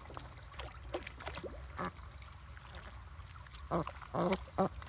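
Domestic ducks dabbling and splashing in shallow pond water, bills working through the mud and water. Near the end come about three loud quacks.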